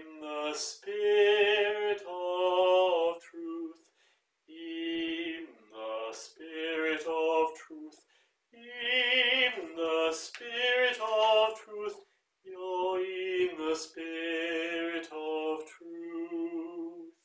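A single voice singing a choral line in slow, held phrases with a gentle vibrato and short breaks for breath.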